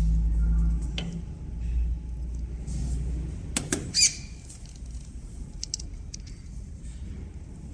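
Small metal injector parts clicking and clinking as they are handled during assembly, with a bright ringing metallic clink about four seconds in, over a steady low rumble.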